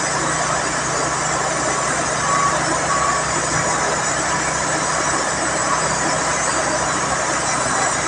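Heavy diesel engine running steadily, with faint short beeps now and then.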